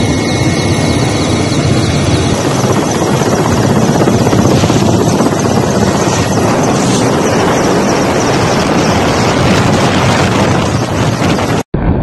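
Helicopter in flight, heard from on board: a loud, steady rush of engine, rotor and wind noise. It breaks off for a moment near the end.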